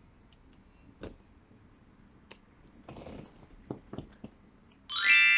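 A few faint clicks and a soft rustle in a quiet room, then near the end a bright ringing chime sound effect starts suddenly and rings on as the loudest sound.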